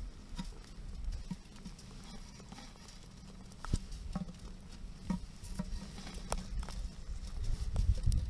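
Campfire crackling: scattered sharp pops and clicks a second or so apart, over a low rumble that grows louder near the end.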